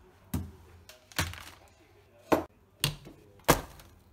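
About five sharp knocks and thuds as food packets and a cardboard pizza box are put down and handled on a stone kitchen worktop, the loudest about three and a half seconds in.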